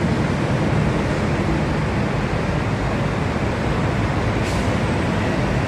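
Steady low rumbling city background noise, with no distinct events standing out.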